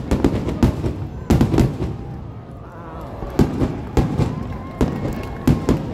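Aerial fireworks shells bursting in a rapid series of sharp bangs, coming in clusters with a short lull about two seconds in.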